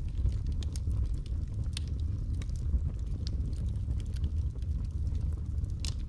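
Wood logs burning in a fireplace: a steady low rumble of the fire with scattered sharp crackles and pops, a louder pop near the end.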